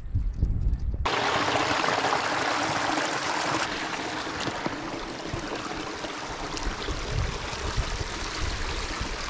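Wind buffeting the microphone, then from about a second in the steady rush of a small stream trickling over stones, with footsteps on rocks and gravel.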